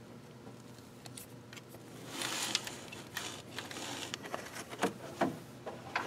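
Needle-nose pliers working a glow plug's harness connector loose inside a diesel cylinder head: a scraping rustle about two seconds in, then a few sharp clicks and knocks of metal tool and plastic.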